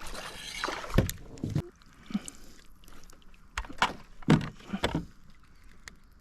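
Water splashing and sloshing around a small boat as a hooked fish is brought in, with several sharp knocks and clatters, a few of them close together about halfway through.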